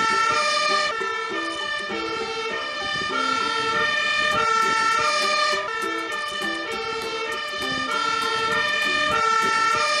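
Fire engine siren sounding, its pitched notes alternating steadily between high and low.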